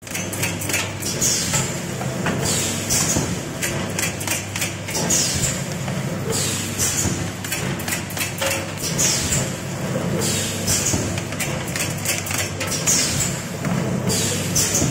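A two-nozzle spout pouch filling and sealing machine running: a steady low hum with constant clicking and rattling, and short hisses of air, likely from its pneumatic cylinders, recurring every second or two.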